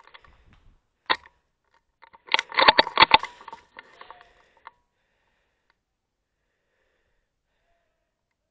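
Airsoft gun firing: a single sharp shot about a second in, then a rapid burst of shots just after two seconds. Scuffling and rustling of movement follow the burst.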